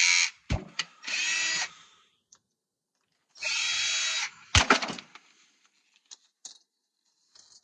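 A power screwdriver running in short bursts as it backs screws out of an old TV tuner's metal chassis. The longest steady run comes near the middle, and loose knocks of metal and plastic fall in between.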